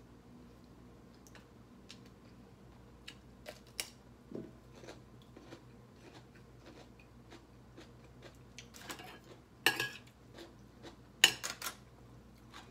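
Quiet eating sounds at a table: scattered small mouth clicks of chewing. A few louder clicks of a spoon against a plate come about nine and eleven seconds in.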